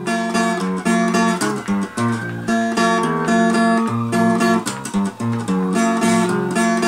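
Acoustic guitar played alone in a break between sung verses of a corrido, with plucked bass notes and strummed chords in a steady rhythm.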